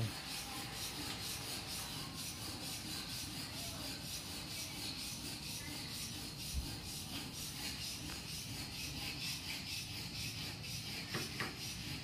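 Steady rhythmic scraping, several even strokes a second, of the kind hand sanding or filing on wood makes, with a couple of light knocks near the end.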